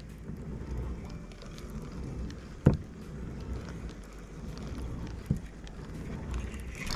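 Low wind rumble on the microphone from a fishing boat on the water, with a sharp knock a little under three seconds in and a lighter one about five seconds in.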